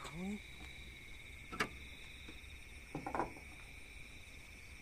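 Crickets chirping steadily in a continuous high trill. A short rising voice sound comes right at the start, and a few faint knocks come about one and a half and three seconds in.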